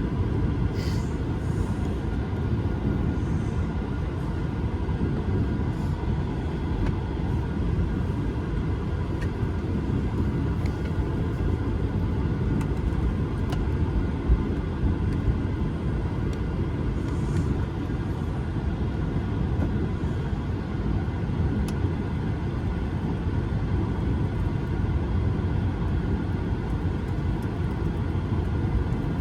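Cabin noise inside an Airbus A220-300 on the ground with its Pratt & Whitney geared turbofan engines at low power: a steady low rumble with a faint even whine above it and a few light ticks.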